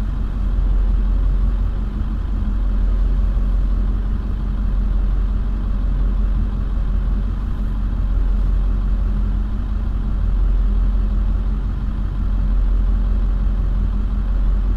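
A truck engine idling steadily, heard from inside the closed cab.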